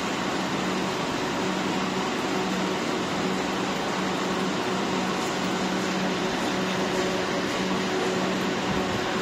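Popcorn production line machinery running: a steady rushing machine noise with a low hum that comes and goes.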